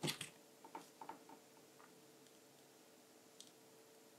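Faint small clicks and taps of a metal USB Type A connector and a small circuit board being handled and fitted together, mostly in the first two seconds, with one more faint click near the end.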